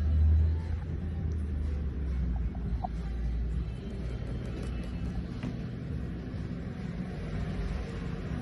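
SYM 4MICA scooter running, picked up by a camera on its handlebar mount: a steady low rumble of engine and road, heaviest for the first few seconds and then easing.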